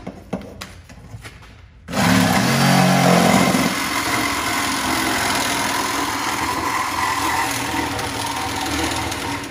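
Cordless power cutter cutting through a car's exhaust pipe: the tool starts about two seconds in, loudest for its first couple of seconds, then keeps cutting at a steady level and stops near the end.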